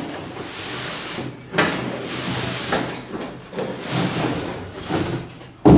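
Cardboard box being opened and a heavy camp stretcher in its fabric carry bag slid out of it: scraping and rustling of cardboard and bag that comes and goes, with a sharp thump just before the end.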